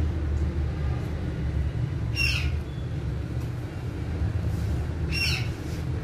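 Ringneck parakeet giving two short, sharp squawks that fall in pitch, about two seconds in and again about five seconds in, over a steady low rumble.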